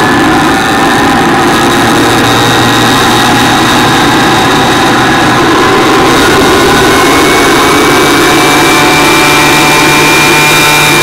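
Bike engine running loudly at a standstill with a steady high whine. A second whine rises slowly in pitch from about seven seconds in as the bike begins to shake.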